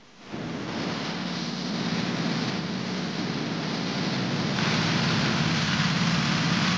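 Petrol power trowel running at a steady speed, its small engine humming under the hiss of the rotating blades on wet concrete; it grows louder and brighter about four and a half seconds in.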